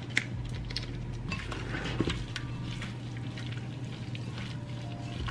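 A disposable plastic glove being pulled on, then a gloved hand mixing cut steak with seasonings and soy sauce in a ceramic bowl: scattered small clicks and knocks against the bowl.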